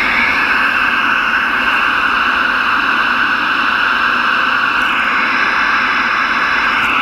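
Two-way radio receiver hissing with loud, steady static: the channel is open with no station talking.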